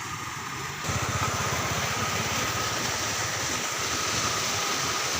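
Motorcycle engine idling steadily with a fast low pulsing; it gets louder in one step about a second in.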